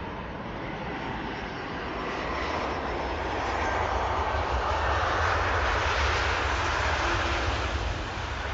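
Jet airliner's engines passing overhead: a rushing roar with a low rumble that swells to its loudest about five seconds in, then begins to fade.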